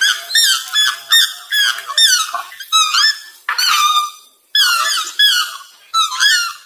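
Swan calling: a quick run of about fifteen short, high calls, each sliding in pitch, with a short break a little past the middle.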